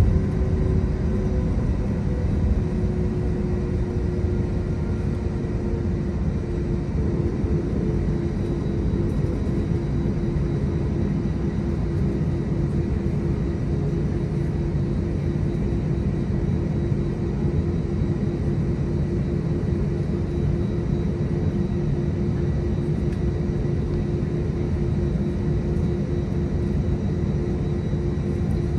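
Airbus A320's IAE V2500 turbofan engines running steadily at idle, heard inside the cabin as a low rumble with a steady hum over it, while the airliner taxis and holds on the runway.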